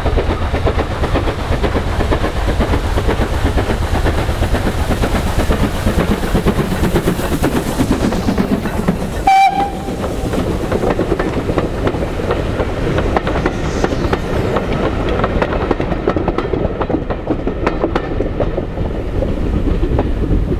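GWR 0-6-2T steam tank locomotive No. 5643 passing at speed with its train: heavy exhaust beats and the clatter of wheels over rail joints as the coaches roll by. A brief high tone sounds near the middle, and the sound fades toward the end.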